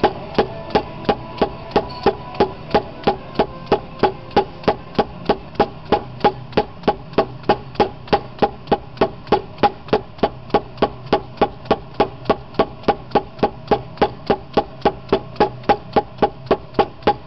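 Rubber mallet tapping a new differential bearing race into a Getrag transmission case, steady blows about three a second, each with a short ring.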